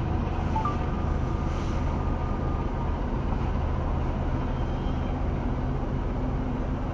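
Steady rumble of a freight train of covered hopper cars rolling past a level crossing, heard from inside a car stopped at the crossing.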